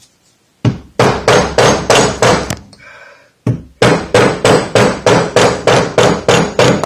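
Rubber mallet striking the fork leg in quick repeated blows, about five a second, to work a stuck fork seal loose. The hammering pauses for about a second midway, then carries on.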